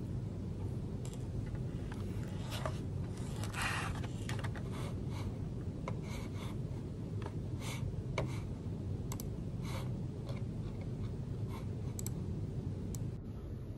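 Typing on a low-profile computer keyboard: scattered, irregular soft key clicks over a steady low room hum.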